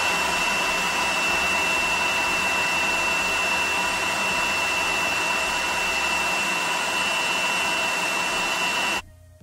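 Electric food processor motor running steadily with a high whine, grinding a thick mix of cooked minced beef, chana dal and raw eggs to a paste; it switches off suddenly about nine seconds in.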